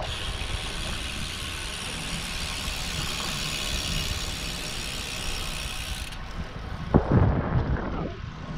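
Lynskey R300 titanium road bike rolling on damp pavement, with a steady high hiss that cuts off abruptly about six seconds in. Low wind rumble on the microphone throughout, with a couple of brief low thumps near the end.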